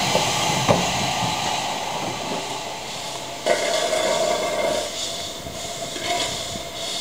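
Steam locomotive moving slowly on the yard tracks, hissing steam with rail clatter. A sharp clank comes about a second in, and about halfway a steady tone sets in suddenly over the hiss.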